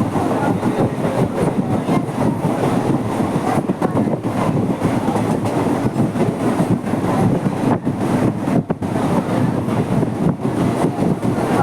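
Mumbai suburban local train running along the tracks: a steady, loud rumble and rattle of wheels and carriages.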